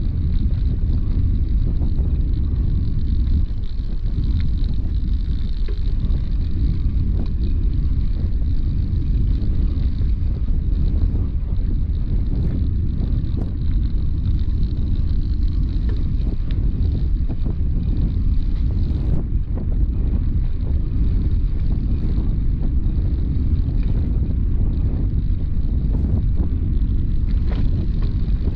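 Bicycle riding over a brick-paved towpath, heard from a handlebar-mounted camera: a steady low rumble of wind on the microphone and tyres rolling on the bricks, with scattered light knocks.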